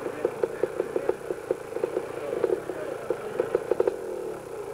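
250 cc two-stroke motocross motorcycle engine idling unevenly, with irregular popping and a few slight rises in revs.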